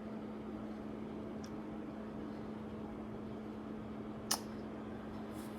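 Steady background hum with one sharp click about four seconds in, and a couple of fainter ticks.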